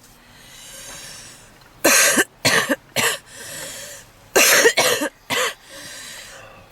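A woman's harsh smoker's cough: two bouts of three coughs each, with heavy, wheezing breaths drawn before and between them.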